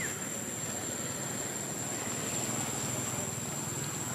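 Steady outdoor background noise: an even rushing hiss with a constant thin, high-pitched whine above it.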